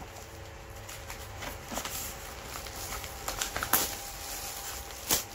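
Packaging being handled by hand while a parcel is unpacked: soft scattered rustling with a few sharp taps or clicks, about one every second or two.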